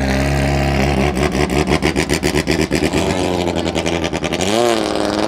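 Toyota 5K four-cylinder engine on a longtail racing boat, running hard through a straight exhaust pipe as the boat accelerates across the water. About four and a half seconds in the pitch dips briefly, then climbs again.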